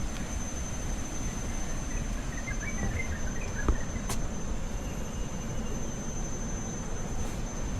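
Outdoor park ambience: a steady low rumble of distant city traffic, with a thin high steady insect-like tone and a short run of bird chirps a little before the middle, and one brief click.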